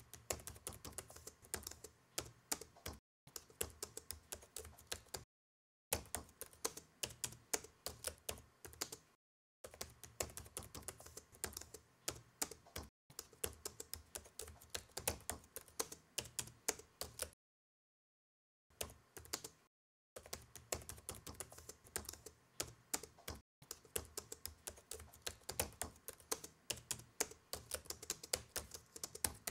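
Typing on a laptop keyboard: quick runs of key clicks, broken every few seconds by brief silent gaps.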